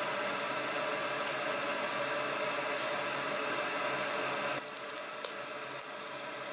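Pig offal sizzling on a wire mesh grill over charcoal: a steady hiss with a faint hum, then an abrupt cut about four and a half seconds in to a slightly quieter stretch of sharp crackles and pops.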